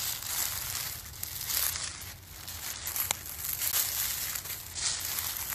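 Footsteps crunching on a winter trail, about one step a second.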